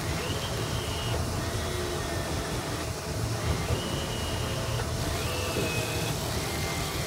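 Fishing boat on open water: a steady low rumble with wind and water noise. A few short, high whines about a second long come and go over it.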